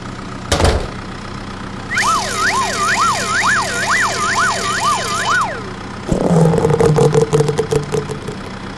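Cartoon sound effects: a short sharp hit, then a siren wailing up and down for about three and a half seconds, then a lower buzzing hum near the end.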